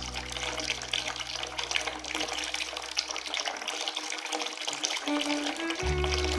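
Running, splashing water with a crackly hiss, of the kind heard during ear irrigation to flush out ear wax. A low music bed fades out partway through and comes back near the end.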